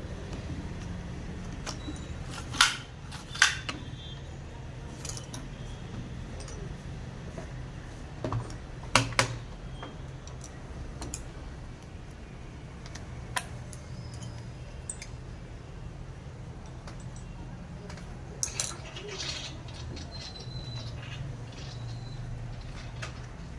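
Scattered clicks and light metallic taps of hand work on a chainsaw starter, with a few sharper knocks, over a steady low hum.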